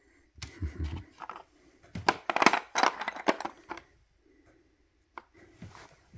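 Plastic pegboard pegs clattering and clicking against each other and a plastic bin as they are handled, in a dense run of rattles in the middle, after a dull thump near the start.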